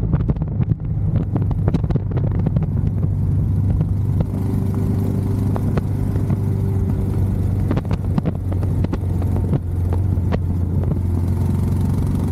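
Royal Enfield Scram 411's single-cylinder engine running steadily at cruising speed, a low, even hum with scattered sharp clicks over it.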